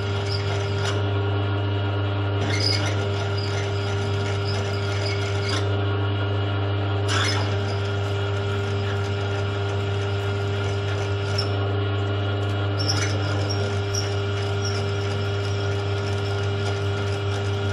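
Milling machine running at low spindle speed, its motor humming steadily, while a 10.8 mm twist drill cuts into a motorcycle brake caliper to make a tapping-size hole. A scraping cutting noise from the drill breaks off a few times and resumes.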